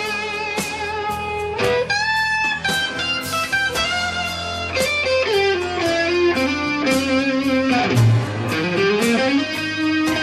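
Electric guitar playing a lead line of picked notes, some held with a slight vibrato, with a note bent down and back up near the end.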